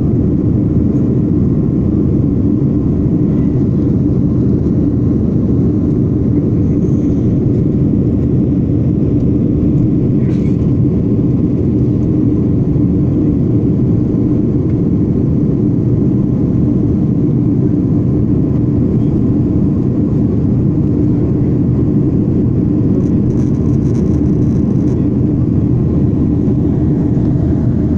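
Jet airliner cabin noise heard from a window seat: a steady drone of the engines and the airflow over the fuselage.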